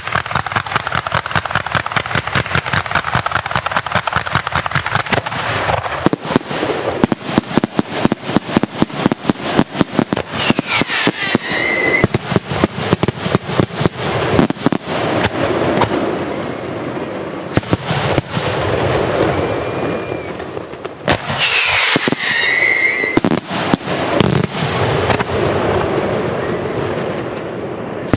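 Fireworks display: rapid volleys of aerial shells bursting, several loud bangs a second with crackling in between. Two high whistles sound through the bangs, one near the middle and one about three-quarters through.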